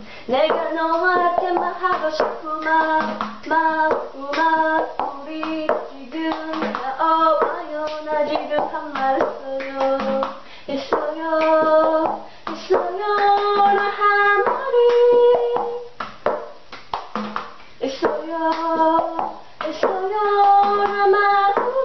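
A woman singing a melody while keeping a steady beat of hand claps and taps of a plastic cup on a table, a cup-game rhythm.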